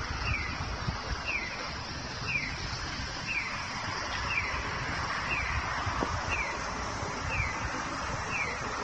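Heisei-era Nisshin No. 21 audible pedestrian signal playing its 'piyo-piyo' bird-chirp tone: a short, high, falling chirp about once a second. The tone signals that the crossing light is green.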